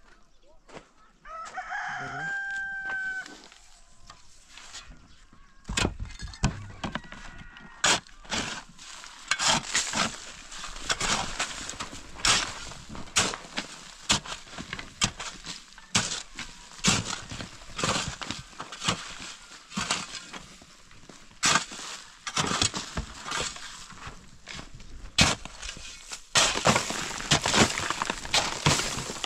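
A rooster crows once near the start, a single call of about two seconds. From about six seconds in comes a long run of irregular sharp knocks and cracks, growing denser near the end, typical of old wood being broken up for firewood.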